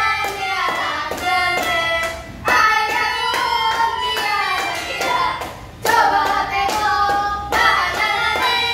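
Children playing a tune on a melodica and a harmonica, with rhythmic hand clapping over it.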